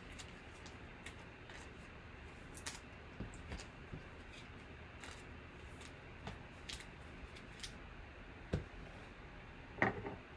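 Faint handling noise of foil trading-card packs and card boxes on a table: scattered light crinkles and clicks, a soft knock about eight and a half seconds in and a louder rustle near the end.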